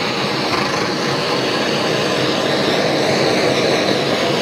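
Kitchen blowtorch flame running with a steady rushing noise as it browns a meringue topping.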